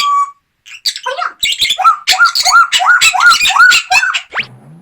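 Pet parrot giving a run of about six repeated calls, each rising then falling in pitch, with sharp clicks beneath, then a quick rising whistle near the end.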